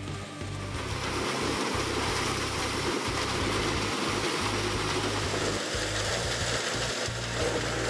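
A large wood-shredding machine runs steadily, its engine and a broad rushing noise setting in about a second in, over background music with a regular bass beat.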